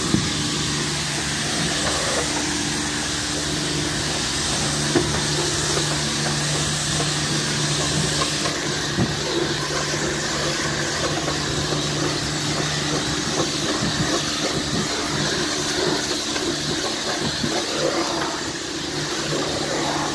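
Pressure washer lance blasting a high-pressure water jet against a van's body panels and window: a steady hiss of spray with a steady low machine hum underneath. The jet comes on at the start and holds evenly.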